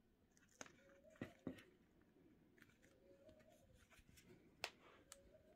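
Near silence with faint handling sounds: soft clicks and rustles as a leather-strapped sandal is turned over in the hands over a tissue-lined shoebox. There are a couple of clicks a little after a second in and a sharper one near the end.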